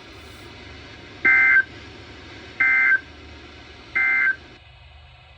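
Three short, loud bursts of Emergency Alert System digital data tones, buzzy two-pitch data chirps about a second and a half apart: the end-of-message code that closes an EAS alert. A faint steady broadcast hiss lies underneath.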